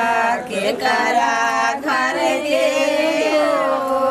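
Women's voices singing a song together, long held notes with brief breaks for breath about half a second and nearly two seconds in.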